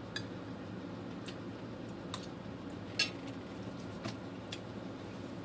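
Small eating noises: a handful of short, faint clicks and taps, the sharpest about three seconds in, over a low steady hum.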